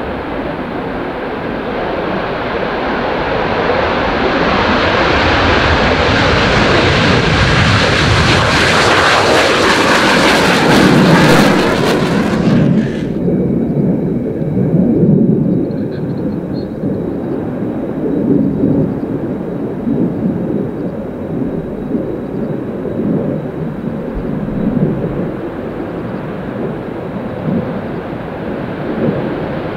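An RF-4 Phantom's twin J79 turbojets at takeoff power on the runway, a loud jet rush that swells for about twelve seconds and then cuts off suddenly. After that comes a lower, steadier rumble of more Phantom jets running on the runway, with small swells.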